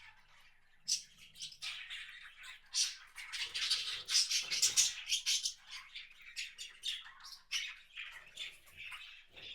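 Several small wild birds calling in quick, overlapping chirps and squawks. The calls start about a second in and are thickest in the middle.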